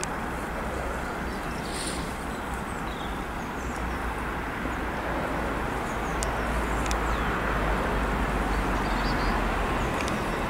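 Class 66 diesel-electric freight locomotive approaching, its two-stroke diesel engine giving a low, steady rumble that grows louder from about halfway through.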